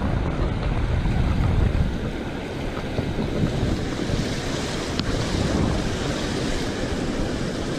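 Ocean surf breaking and washing on the beach, with a steady hiss that grows brighter about halfway through. Wind buffets the microphone, giving a gusty low rumble.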